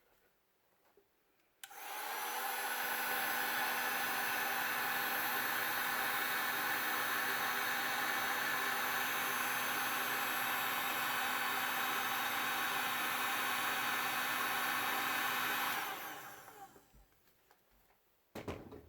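Electric heat gun blowing steadily, shrinking heat-shrink tubing over a freshly crimped wire connector. It switches on about two seconds in and runs down near the end.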